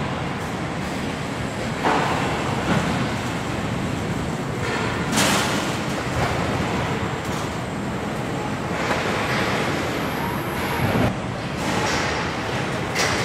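Car-body assembly line machinery running: a steady mechanical din with several short, louder clanks scattered through, the loudest about five seconds in and about eleven seconds in.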